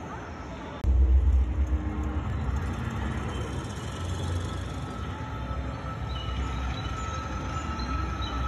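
Deep, steady rumble from a media-art installation's sound system playing with a projected metal-waterfall display; it starts suddenly about a second in, with a faint steady high tone above it.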